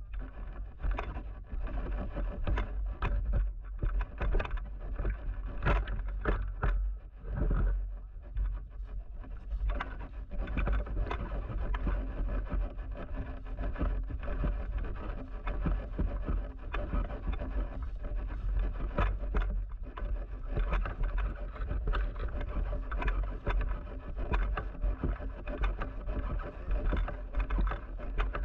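Riding in a vehicle: a steady low rumble with frequent knocks and rattles all through.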